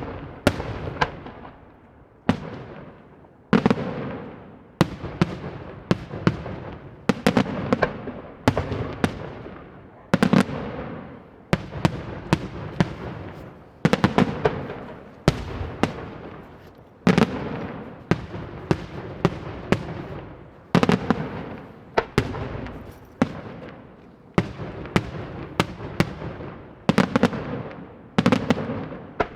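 Daytime fireworks display: loud bangs going off in a steady run, about one every second to second and a half. Each sharp blast is followed by smaller cracks and a long echo that dies away.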